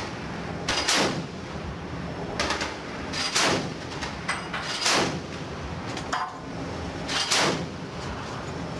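About five single loud reports from a Mk38 mount's 25 mm M242 Bushmaster chain gun, fired one at a time at uneven intervals, each with a short trailing echo. A steady low rumble of wind and ship noise lies under them.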